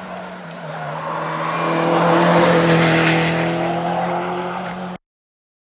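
Mini race car's engine held at steady high revs, growing louder as the car comes through a bend and passes, then easing a little. The sound cuts off suddenly near the end.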